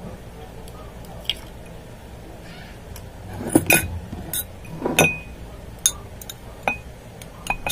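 Glassware clinking as an egg yolk is tipped from a small glass bowl into a cut-glass tumbler: about eight sharp clinks, a few with a short ring, most of them from about halfway in.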